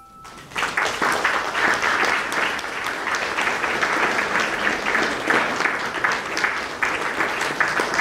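A sustained music note fades out and an audience breaks into applause about half a second in, clapping steadily.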